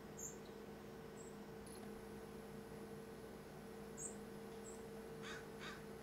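Small songbirds giving scattered short, very high chirps, then three quick harsh notes close together near the end, over a faint steady hum.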